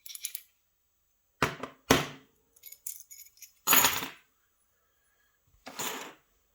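A pin-tumbler lock cylinder being taken apart by hand: small metal parts click and knock against each other and a hard surface in a handful of separate hits. The loudest hits come about 2 and 4 seconds in.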